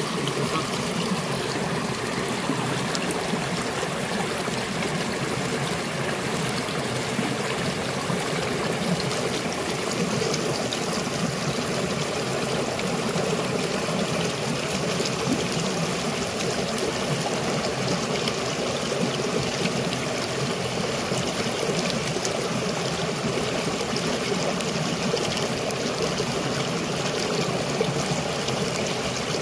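A river flowing: a steady, unbroken rush of running water.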